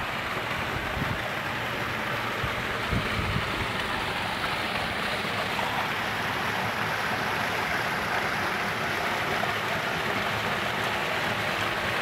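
Small waterfall splashing into a rocky stream pool, a steady rushing of water.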